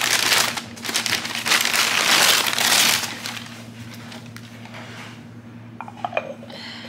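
Packaging crinkling and rustling as an item is unwrapped by hand. It is loud for about three seconds, then turns to quieter rustling with a few light clicks near the end.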